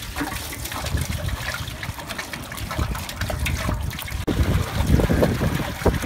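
Water poured in a steady stream from a large plastic jug into a big metal cooking pot, splashing onto the pot's bottom.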